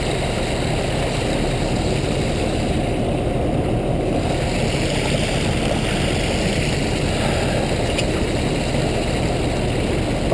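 Fish-stocking tank truck running steadily, a low mechanical rumble, with the water in its aerated tank churning. A faint hiss joins in about four seconds in.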